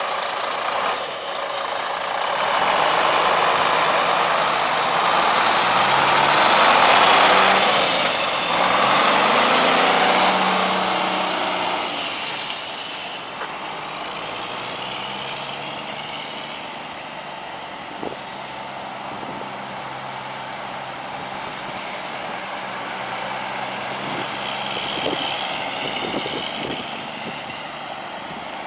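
Cummins ISM 10.8-litre inline-six turbo diesel of a Volvo VN semi truck running. It revs up and down with a loud rushing sound for about the first twelve seconds, then settles to a steady idle.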